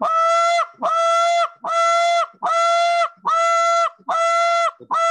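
Short reed goose call blown in a steady series of about seven loud, drawn-out moan notes. Each note is held flat in pitch for about two-thirds of a second, with short breath gaps between them, and is driven with hard, fast air pressure.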